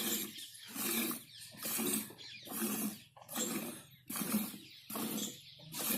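Cow being milked by hand: milk streams squirting into a pail in an even rhythm, about one to two squirts a second.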